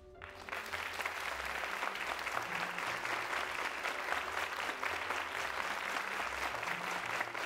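Theatre audience applauding, swelling up about half a second in and then going on at a steady level.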